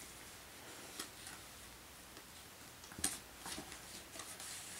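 Light taps and rustles of paper cards and a small cardboard box being handled, with the sharpest tap about three seconds in.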